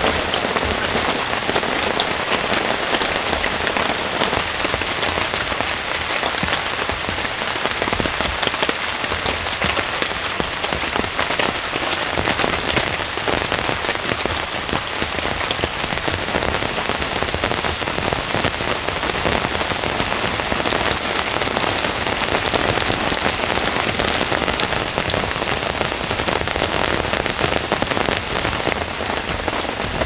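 Heavy rain falling steadily on forest leaves, an even hiss full of close drop hits.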